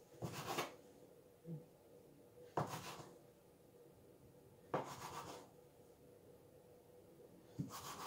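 Small knife cutting a log of bread dough into pieces on a worktop: four faint cuts about two seconds apart, each a short tap and scrape of the blade.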